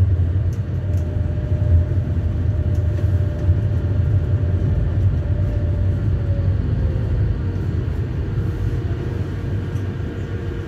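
Electric tram running with a steady low rumble and a faint whine that drops a little in pitch about six seconds in, the sound easing off gently toward the end.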